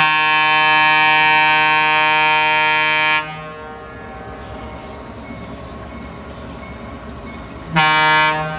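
Air horn of an ALCO RS-3 diesel locomotive: one long blast of about three seconds, then a short blast near the end. This is the horn sounded on approach to a grade crossing. Between the blasts the locomotive's diesel engine rumbles faintly.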